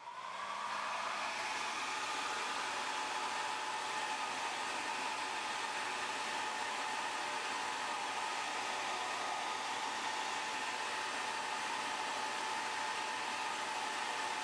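Hair dryer running steadily, a rush of air with a faint whine, heating the iPhone 3G's glass to soften the adhesive that holds the digitizer.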